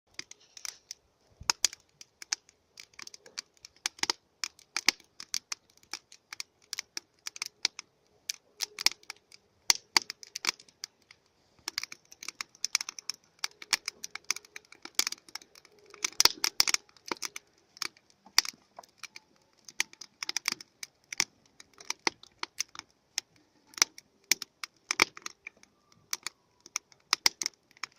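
Wood fire crackling, with an irregular run of sharp pops and snaps, several a second, some much louder than others.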